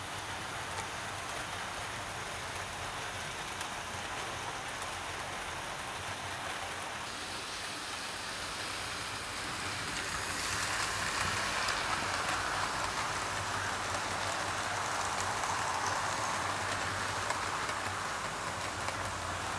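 OO gauge model train, an LNER A3 locomotive hauling a rake of teak coaches, running on the track: a steady noise of the motor and wheels on the rails. It grows louder about ten seconds in as the train runs close by.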